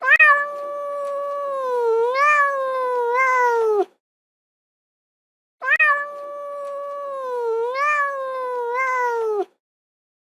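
Domestic cat giving two long, drawn-out meows of nearly four seconds each, wavering in pitch and dropping at the end. The second call is an exact repeat of the first.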